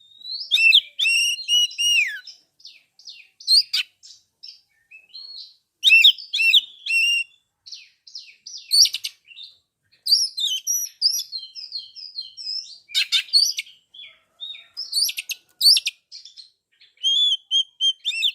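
Oriental magpie-robin (kacer) singing: a varied song of clear whistled phrases, sliding notes and rapid chattering chips, delivered in short bursts with brief pauses between them.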